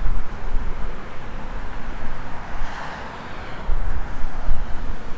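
Gusty wind buffeting the microphone with an uneven low rumble. A rushing hiss swells and fades about halfway through.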